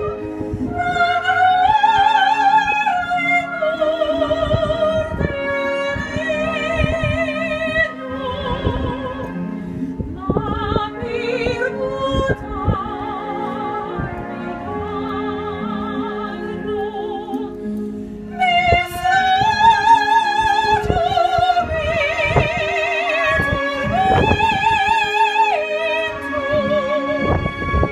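A woman singing in operatic style, holding long high notes with wide vibrato, over steady instrumental accompaniment. She swells louder about two seconds in and again about two-thirds of the way through.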